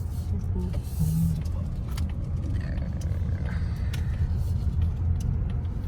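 Car cabin noise while driving: a steady low rumble of engine and road noise heard from inside the moving car.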